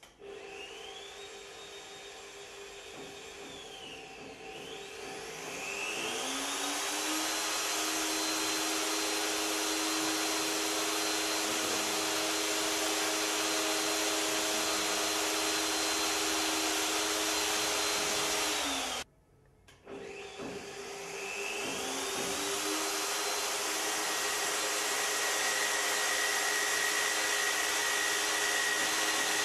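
Magnetic drill's motor running an annular cutter through a steel plate: the whine rises as it spins up, dips and rises again, then holds steady. It cuts off abruptly about two-thirds through, spins up once more and runs steady, a thin high whistle joining near the end.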